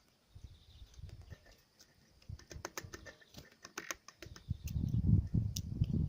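Birds pecking at a feeder: irregular sharp taps and clicks that come thicker from about two seconds in. From about four and a half seconds a low rumbling noise joins them and is the loudest part.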